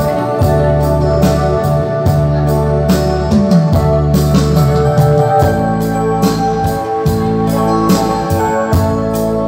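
Electronic keyboard playing an instrumental passage: sustained chords over a bass line with a steady beat.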